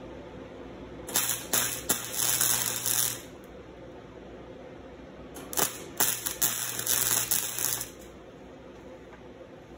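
Stick-welding arc crackling and sizzling in two bursts of about two seconds each as steel chain links are welded to a steel sheet, with a low steady hum under each burst while the arc burns.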